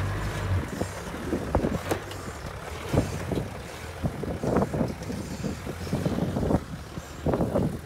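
Toyota LandCruiser 80 series four-wheel drive crawling slowly over rock and dirt: a steady low engine hum under irregular crunches and knocks of the tyres on stones.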